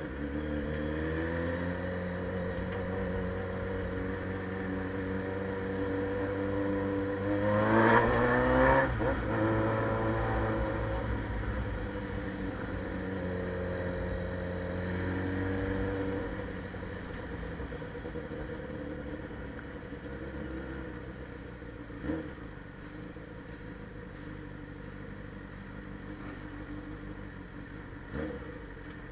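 Suzuki Bandit 600's carbureted inline-four engine running through a straight-pipe sports exhaust while riding, revving up sharply about eight seconds in, the loudest moment, then holding steady and dropping to a quieter run after about sixteen seconds. Two short knocks come later on.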